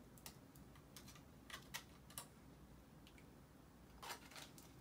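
Faint, scattered crinkles and clicks of aluminium foil being peeled off a milk chocolate egg, with a small cluster near the end.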